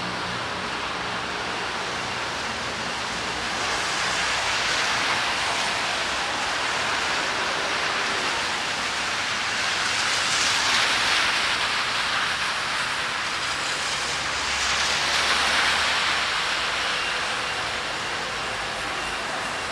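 Rain and traffic on a wet street: a steady hiss of rain, with the tyre hiss of passing vehicles on wet road swelling up and fading three times.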